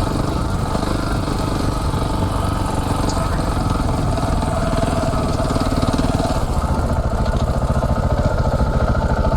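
Single-cylinder dual-sport motorcycle engine running steadily while riding.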